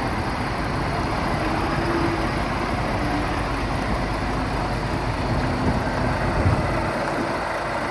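Volvo FH460 tractor unit's 13-litre six-cylinder diesel idling steadily.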